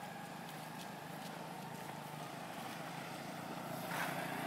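Steady low motor drone, like an engine running nearby, growing a little louder near the end.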